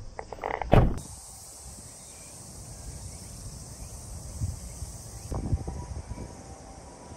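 A single loud thump about a second in, then steady low background noise with a few softer knocks about five seconds later.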